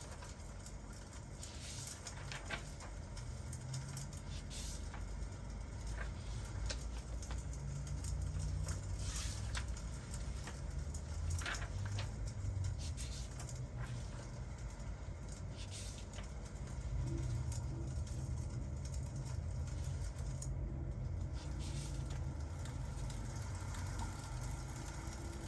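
Fireplace crackling: irregular sharp pops and snaps scattered over a low steady rumble.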